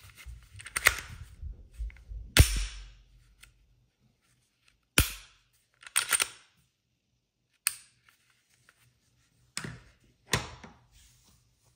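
Gloved hands handling a Glock 43X MOS pistol and its hard plastic holster on a stone countertop. Rustling at first, then about six sharp clicks and knocks a second or two apart as the pistol goes into and out of the holster and is set down.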